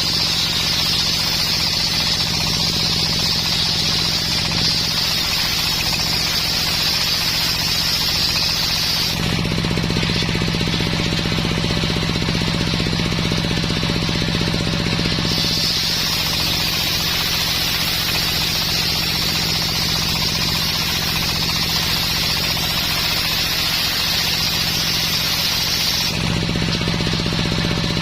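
Homemade circular sawmill running steadily while sawing coconut wood: a steady low hum from its drive, with a higher hiss of the blade that is there for about the first nine seconds, stops for about six, and comes back until near the end.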